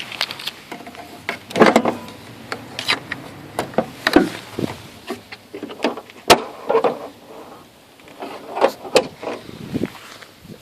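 Irregular clicks, knocks and rustling of things being handled, with no engine running.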